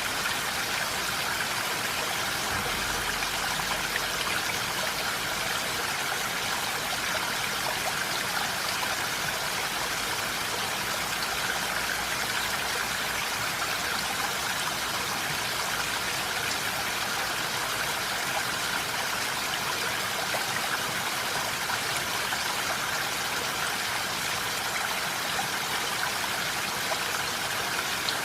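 Steady rain falling, an even hiss of water that holds at one level throughout.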